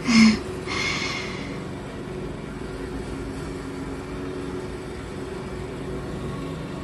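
A steady low mechanical hum with several held tones, with a short hiss about a second in.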